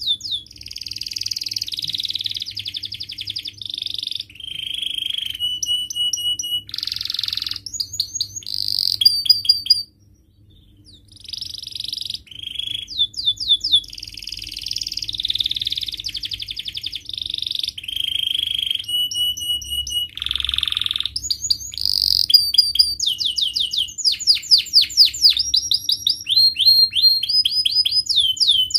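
Domestic canary singing a long, varied song of rapid trills, rolls and repeated sweeping whistled notes, with a brief pause about ten seconds in. A faint steady low hum sits underneath.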